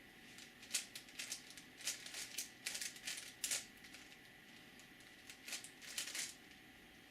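Plastic layers of a 5x5x5 Rubik's cube being turned by hand, clicking in quick runs: a flurry of turns for about three seconds, a pause, then a shorter flurry near the end.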